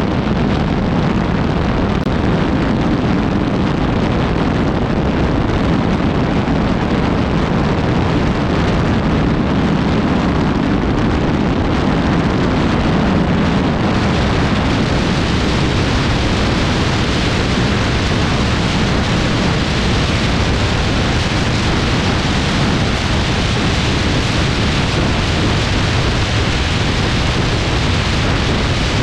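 Wind rushing over a camera mounted outside a moving car at highway speed, mixed with tyre and road noise: a loud, steady rushing noise that turns hissier about halfway through.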